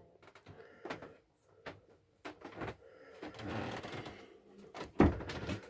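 Soft, scattered knocks and bumps from a person walking through a small carpeted boat cabin with a handheld camera: footsteps and handling noise. The loudest knock comes about five seconds in.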